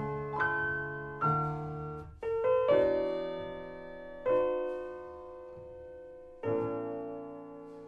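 Solo piano playing slow chords, each struck and left to ring out and fade, about seven strikes in all. These are the closing bars of a song in a sped-up, pitched-up nightcore edit.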